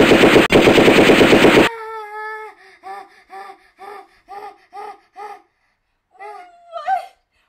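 Rapid machine-gun fire sound effect that cuts off sharply just under two seconds in, followed by a voice laughing in an even run of 'ha' syllables and a short vocal cry near the end.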